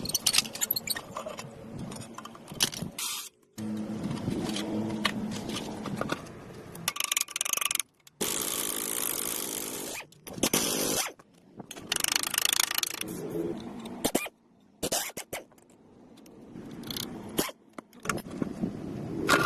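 A string of short, abruptly cut workshop sounds: metal parts scraping and clattering, with a steady hum in one stretch and a two-second burst of hiss near the middle.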